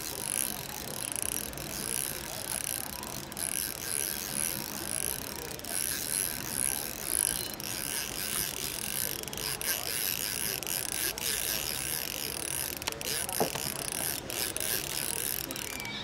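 Fishing reel's ratchet and gears clicking in a repeating rhythm as a hooked fish is fought.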